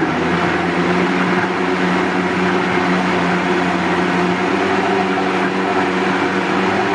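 Vitamix Professional Series 500 blender's 2-peak-horsepower motor running steadily at speed, its blades churning a foaming liquid in the jar: a loud, even whir over a steady hum.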